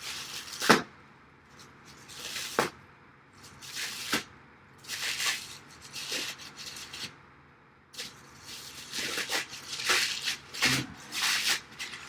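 Plastic wrapping being peeled and torn off hardware in irregular bursts of rustling and tearing, with a few sharp clicks and knocks.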